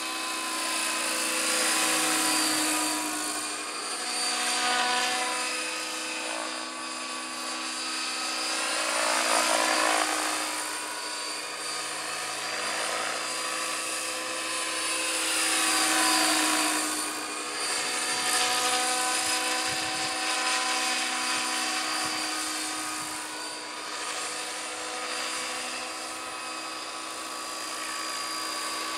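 T-Rex 600 radio-controlled helicopter with a Bell LongRanger scale body flying: a steady high whine of motor and rotor blades that swells and fades several times as it passes back and forth. Its pitch slides with each pass.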